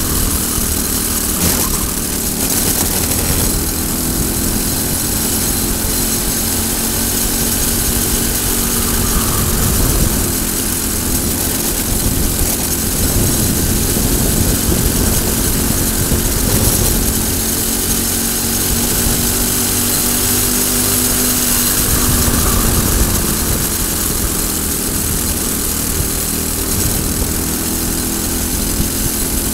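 Briggs & Stratton single-cylinder four-stroke kart engine running hard at race revs, its pitch rising and falling a little as the revs change through the corners, with wind rushing over the onboard microphone.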